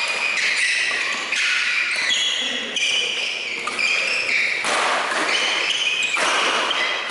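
Badminton doubles rally: shoes repeatedly squeaking on the court as players move, and rackets striking the shuttlecock, with two sharp hits a little under five and about six seconds in.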